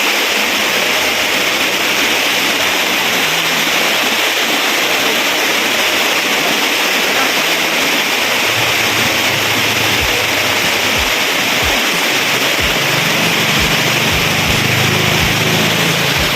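Waterfall rushing and splashing: a steady, loud wash of falling water. A few short low thumps come in during the second half.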